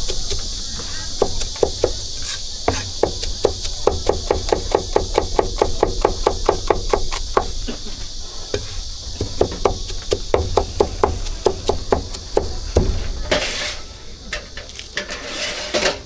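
Cleaver chopping braised pork for roujiamo on a wooden board, in quick even strokes about five a second with short pauses between runs.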